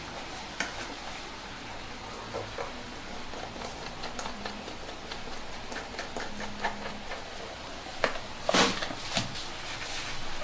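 Light clicks and knocks from small fittings and the plastic bottle being handled during assembly, with a louder clatter about eight and a half seconds in.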